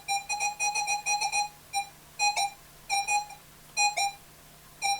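Minelab X-Terra 705 metal detector sounding its target tone: repeated short beeps at one steady pitch, some in quick pairs, as a small homemade copper ring passes over its 10-inch DD coil. The broken-up, doubled beeping is the double signal the ring gives.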